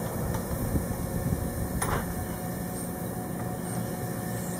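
Steady low rumble with a faint hum running under it, and one brief click about two seconds in.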